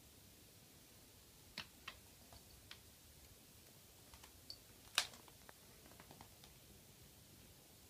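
Scattered light clicks and taps over near silence, about a dozen in all and loudest about five seconds in: a cat's paws and claws on a laminate floor as it bats at a moth.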